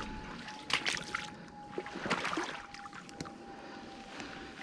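Footsteps wading through shallow flood water, with irregular sloshing splashes about once a second.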